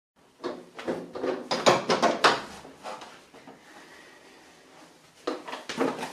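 A wooden plank door with a thumb latch being unlatched and swung open, a quick run of wooden knocks and clatter in the first three seconds. More knocks and rustling near the end as things are moved about in the cupboard.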